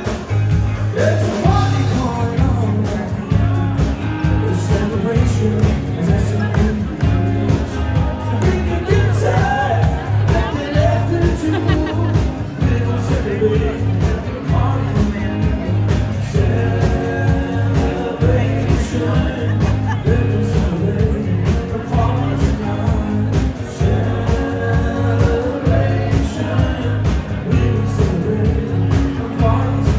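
A live band playing an upbeat rock-and-roll song with a singer over a steady beat.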